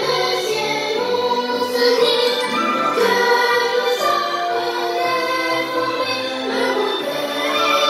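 Music with choir-like singing playing through a homemade 3D-printed Bluetooth speaker built as a JBL Flip copy, with very little deep bass.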